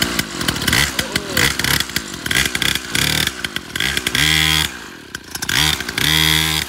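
Kids' pocket dirt bike's small 49cc petrol engine catching suddenly, then revved in repeated throttle blips that rise and fall in pitch, with two longer holds at high revs about four and six seconds in.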